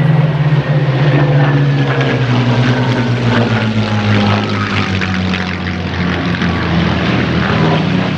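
Rolls-Royce Merlin V12 piston engines of low-flying propeller fighters passing overhead, the engine note sliding gradually down in pitch as they go by.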